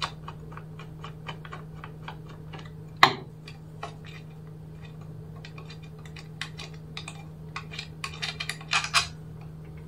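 Small ticks of a screwdriver backing out the screw at the bottom of a Commax intercom door panel. A sharper clack comes about three seconds in, then denser plastic clicks and rattles as the panel's casing is opened by hand, over a steady low hum.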